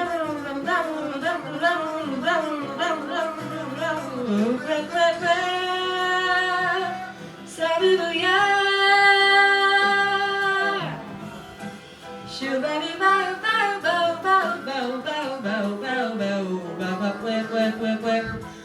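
Jazz vocalist scat singing fast, twisting melodic runs, sustaining one long held note about halfway through, then running on again, over a small jazz band accompaniment.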